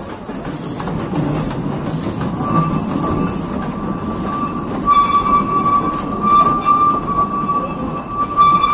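Narrow-gauge railway carriages rolling slowly past with a low rumble from the wheels on the track. About two and a half seconds in, a high, steady wheel squeal sets in and grows louder from about five seconds, wavering in strength.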